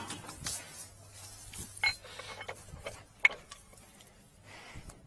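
Metal parts or tools being handled: a few sharp metallic clinks and knocks, two of them ringing briefly, with light scraping between.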